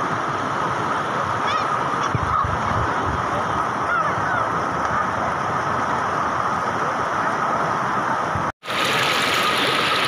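Shallow river water rushing steadily over flat rock rapids. The sound cuts out for a split second about eight and a half seconds in.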